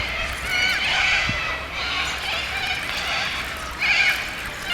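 Birds calling over and over, short bending calls overlapping, with a louder flurry about four seconds in, over a low steady hum.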